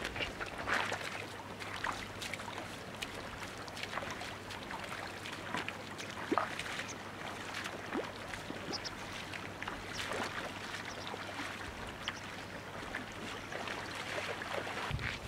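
Shallow, stony river trickling, with the irregular splashes of a person wading barefoot through it, clearest in the first second or so.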